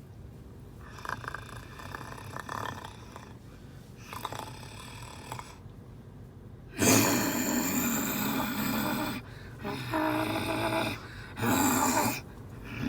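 A child making vocal sound effects with breath and voice: soft breathy sounds at first, then louder, rasping voiced noises in short spells from about halfway through.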